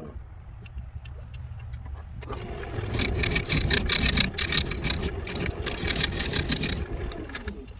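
Wood lathe motor humming steadily while a turning gouge cuts into a spinning walnut blank; the rough, chattering cut starts about two seconds in and stops near the end.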